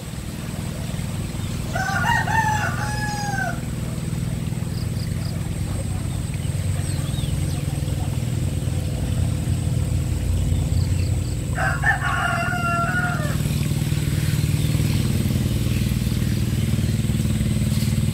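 A rooster crows twice, once about two seconds in and again about twelve seconds in, over a steady low engine drone.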